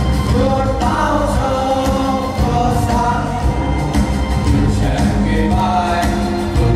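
A group of voices singing together over a backing track with a steady beat and heavy bass.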